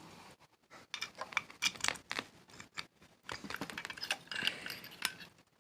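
Irregular small clicks, taps and rattles of objects being handled, growing busier about halfway through.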